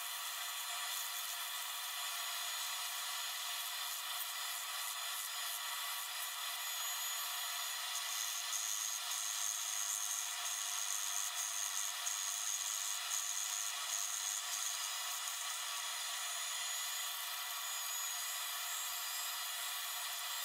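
Small belt grinder running steadily while a steel hammer head is pressed against the belt and ground. The grinding gets louder and hissier from about 8 to 15 seconds in.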